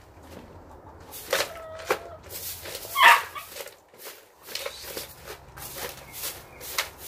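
Bristle broom sweeping chicken-run litter into a plastic dustpan, a run of short scratchy strokes, with hens clucking and one loud animal call about three seconds in.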